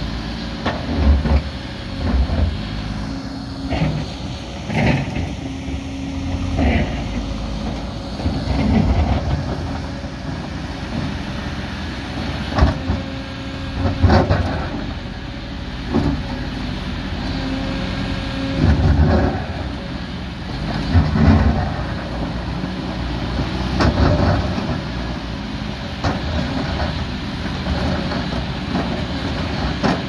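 Kobelco SK220 hydraulic excavator's diesel engine running under load while it digs, with knocks and clatters every few seconds as the bucket strikes and scrapes rocky soil.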